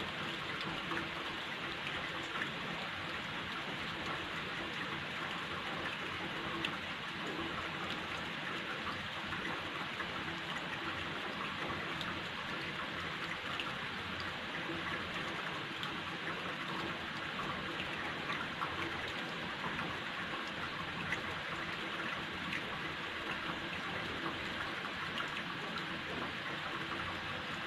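Light rain falling steadily, with scattered ticks of individual drops.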